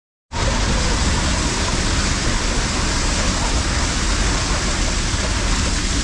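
Steady rush of water running down an enclosed water-slide tube, heard from inside the tube at the start gate. It cuts in abruptly just after the beginning.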